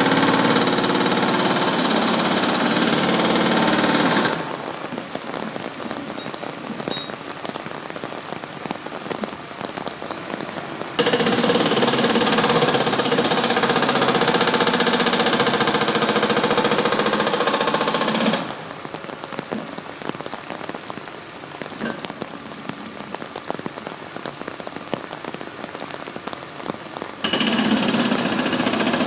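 Long-reach demolition excavator working: its diesel engine and hydraulics run loud for about four seconds, drop abruptly to a quieter level for about seven, come up loud again for about seven more, drop again, and come back up near the end. A steady hiss lies underneath throughout.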